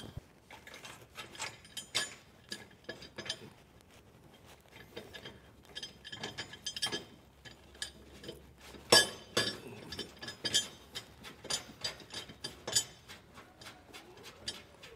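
Irregular small metallic clicks and ticks as button head screws are threaded by hand into clip-in brackets in a steel truck frame rail. The loudest click comes about nine seconds in.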